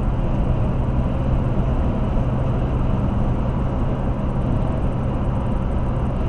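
Steady road and engine noise inside a car cruising at highway speed: an even tyre rumble under a constant low hum.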